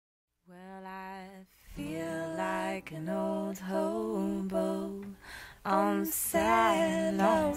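Unaccompanied singing starts after about half a second of silence: one held note, then a slow melody that grows louder about six seconds in.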